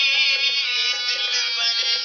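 Music from a Punjabi Christian song: a wavering high melody over steady accompaniment.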